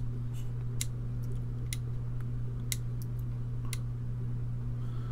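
A steady low hum with faint, sharp ticks evenly spaced about once a second, four in a row, and a few softer ticks between them.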